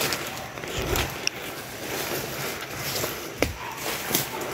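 Footsteps and rustling of leaves and branches as someone pushes through dense forest undergrowth, with a few sharp snaps of twigs.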